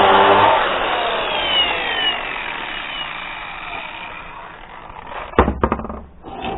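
A power tool's motor running, switched off about half a second in and winding down with a falling whine that fades over a few seconds; a few sharp knocks near the end.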